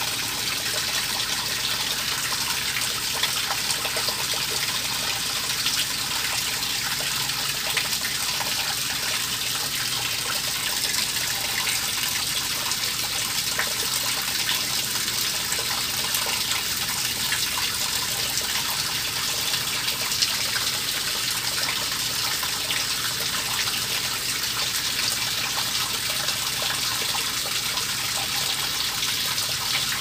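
Steady, even rushing noise like running water, with a few faint ticks.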